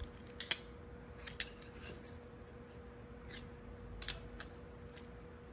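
Scattered light metallic clicks and clinks, about eight in all, from an Allen key and the handlebar knocking against the bicycle stem as the bar is shifted to centre it in the loosened stem clamp.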